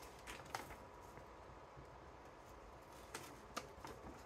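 Faint rustling and crackling of a folded paper map being handled and opened out, a few short crinkles over quiet room tone.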